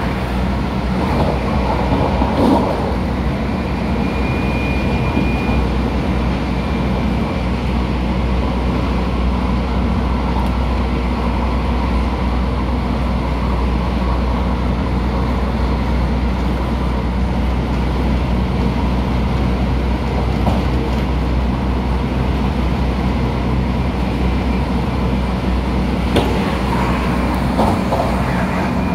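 Running noise inside an MTR Tung Chung Line A-train electric multiple unit: a steady low rumble of the train travelling along the track, with a thin high tone briefly about four seconds in.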